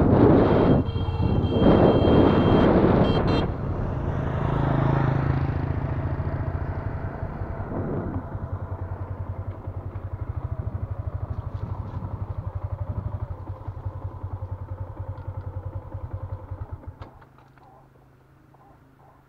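Motorbike engine running while riding, with wind rushing over the microphone for the first few seconds. The engine then settles into a steady low pulsing drone and stops about seventeen seconds in.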